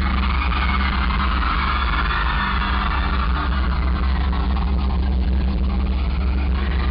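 Concert crowd screaming and cheering over a loud, steady, deep drone from the sound system.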